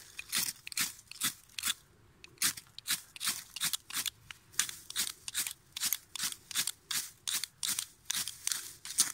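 A striker scraped down a ferrocerium rod again and again, short sharp rasps about three a second with a brief pause about two seconds in, throwing sparks into dry grass tinder to light it.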